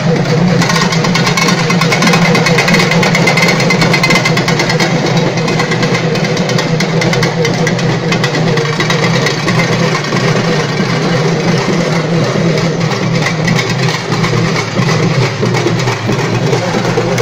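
Loud troupe of Tamil festival barrel drums beaten with sticks, playing a fast, unbroken rhythm of dense strokes.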